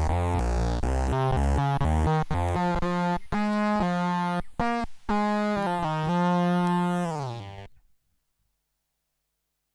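Electric bass played through an Electro-Harmonix Bass Mono Synth pedal, giving a buzzy synth-bass tone. A phrase of several short notes ends on a held note that fades out about eight seconds in, then silence.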